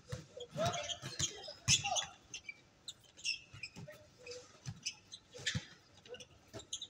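Pickup basketball game: sneakers squeaking sharply on the court surface as players cut and stop, and the ball bouncing several times, mostly in the first two seconds.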